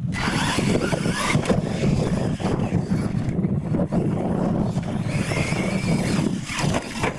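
Losi LMT radio-controlled monster trucks racing on dirt, their electric motors whining and rising and falling in pitch as they accelerate. A steady low wind rumble on the microphone runs underneath.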